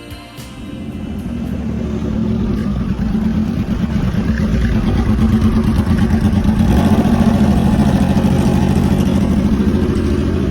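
Motorcycle engine running under way, with road and wind noise, getting louder over the first few seconds and then holding steady.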